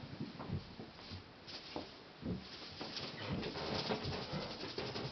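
Kittens playing: a soft patter of paws and rustling, with a few brief low sounds.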